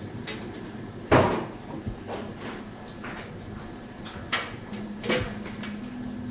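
Chef's knife cutting through ginkgo nuts and knocking on a cutting board: a few irregular sharp knocks, the loudest about a second in.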